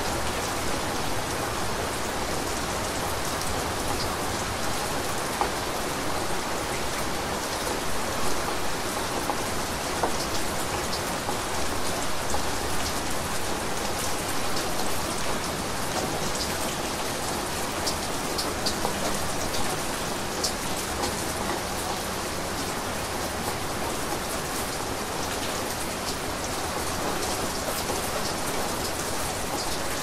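Steady rain falling: an even hiss with scattered sharper drop ticks.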